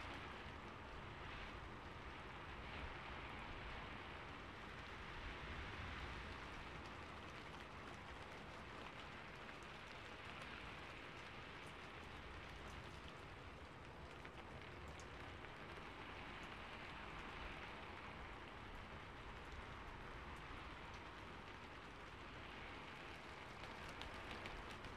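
Steady, soft rain falling, an even hiss that swells and eases gently, with faint scattered drop ticks.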